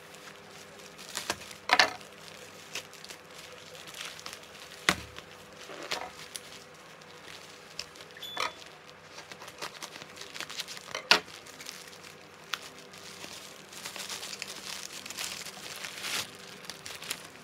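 Black plastic courier pouch being handled and torn open, crinkling, with scattered sharp crackles and taps. The crinkling grows busier near the end as the pouch is pulled apart.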